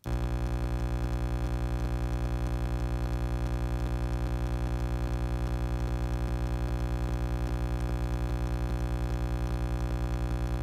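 A steady electronic drone of many held tones at once with a fast, even throb, starting abruptly. It is not a sound of the phone repair being done.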